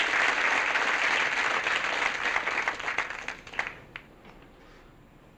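Studio audience applauding, dying away about three and a half seconds in with a few last scattered claps.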